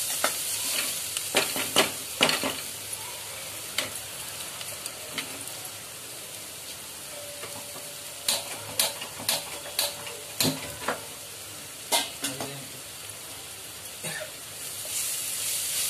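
Onion and spice filling sizzling in a kadai while a metal spatula stirs and scrapes through it. Sharp taps of the spatula against the pan come in a cluster about two seconds in and again between about eight and twelve seconds.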